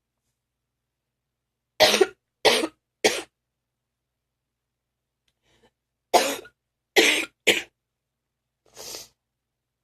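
A person coughing a phlegmy morning cough in two fits of three hard coughs each, with a pause between the fits, then a softer, breathy sound near the end.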